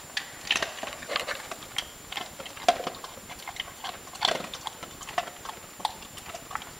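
A dog crunching and chewing a small hard dog cookie: a run of irregular crunches and clicks.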